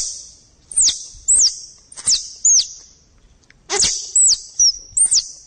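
Plantain squirrel (bajing kelapa) calls from a hunting lure recording, a mix of mating and fighting calls: a quick, irregular run of about nine sharp, high chirps, each falling steeply in pitch, with a click at the start of most.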